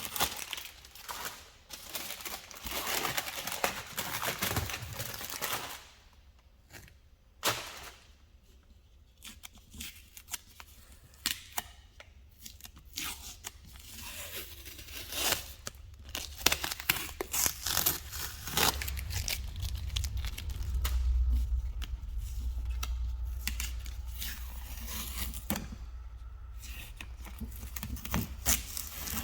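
Masking tape and paper being peeled and torn off, with irregular tearing and crinkling and scattered sharp clicks. A low hum comes in about two-thirds of the way through.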